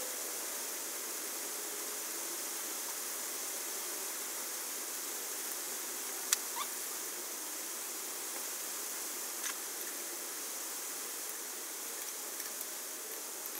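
Steady hiss of rain. About six seconds in there are two sharp metal clicks, and a few fainter ones later, as a hand wrench works on the air compressor's cylinder head bolts.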